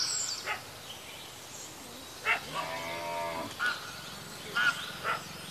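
A cow mooing once, a call of about a second near the middle, with short bird chirps around it.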